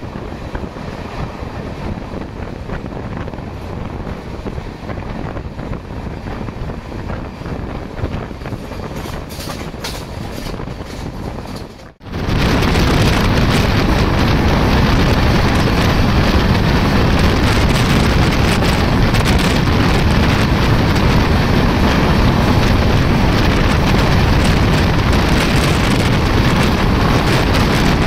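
Express passenger train running at speed, heard from on board: a steady rumble of the coaches on the rails. About twelve seconds in the sound drops out for an instant, then comes back much louder, with heavy wind noise on the microphone.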